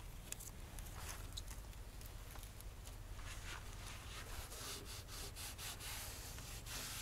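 Faint rustling and scraping of hands working a self-adhesive rubber weatherstrip along a car's headlight edge, pulling off its backing tape and pressing the seal down. The rustles come thicker in the second half.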